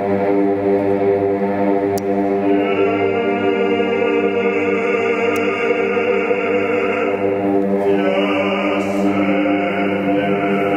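Live chant-like singing over a steady drone: one long held, unbroken tone whose upper overtones grow brighter about two and a half seconds in and change again about eight seconds in.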